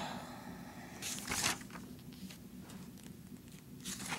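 Glossy magazine pages rustling as they are handled and turned, in two brief rustles: one about a second in and one near the end as a page is flipped.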